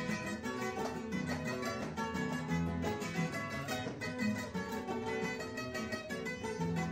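Three acoustic guitars playing an instrumental passage of a paseo, with picked melody notes over a strummed accompaniment.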